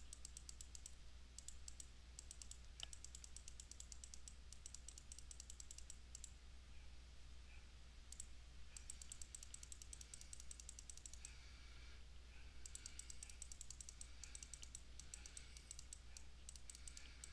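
Faint rapid clicking from a computer mouse, in bursts of one to two seconds with short pauses between, over a low steady hum.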